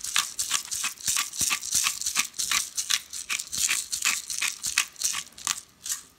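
Hand-twisted pepper mill grinding peppercorns: a quick, even run of dry crunching clicks, about three or four a second, stopping near the end.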